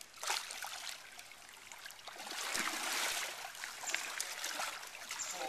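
Water splashing and sloshing as two hippos spar with open jaws. There is a short splash near the start and a longer, louder burst of splashing in the middle.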